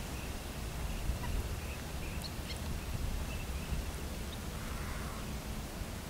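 Low wind rumble on the microphone, with a few faint, short bird chirps about two seconds in.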